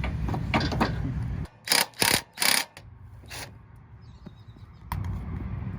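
Short, sharp mechanical ratcheting bursts: three in quick succession about a second and a half in, and a fourth a little later, between stretches of low rumble. A single sharp click comes near the end.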